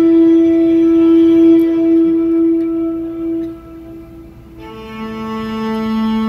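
Solo cello playing slow, sustained bowed notes: one long held note fades out about four seconds in, and a lower note swells in and is held to the end.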